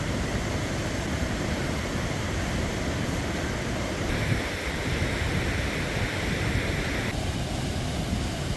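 A fast, swollen snowmelt creek rushing steadily.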